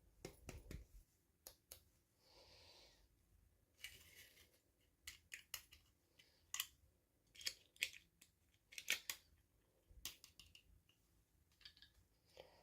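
Faint, irregular sharp snips and clicks of scissors cutting through toy packaging, coming in quick clusters with a short soft rustle between.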